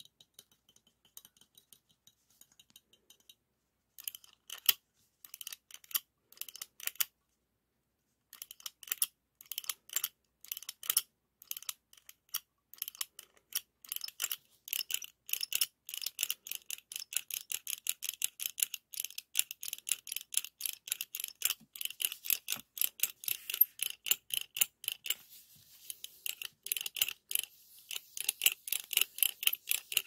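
Rapid metallic clicking and ticking from a stainless steel ice cream scoop's lever-driven scraper mechanism being worked by hand. Faint at first, then from about four seconds in a quick run of many clicks a second, with a short pause near eight seconds.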